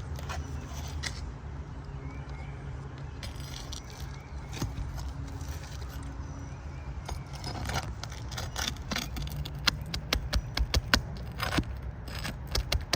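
Metal roof snake worked under asphalt shingles to pry out nails: scraping with a run of sharp metallic clicks and taps that starts about halfway in and grows denser toward the end.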